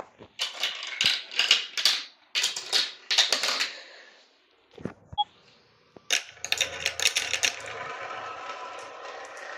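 Marbles clattering down a marble run in quick bursts of clicks. After a short lull about six seconds in, a new burst of clicks settles into a steady rolling rumble of marbles running along the track.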